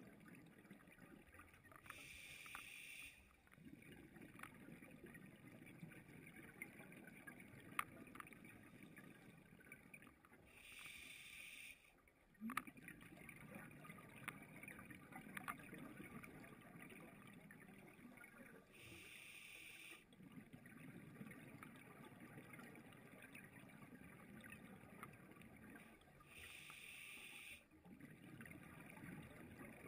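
Scuba breathing heard underwater: a short hiss of inhalation through the regulator about every eight seconds, four times, with the low rumble of exhaled bubbles in between. A few faint clicks.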